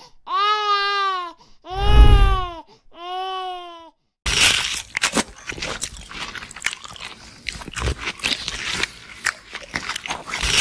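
An infant crying: three long wailing cries, rising then falling in pitch. About four seconds in it stops and gives way to eating sounds, dense quick biting and chewing with many sharp crackly bites.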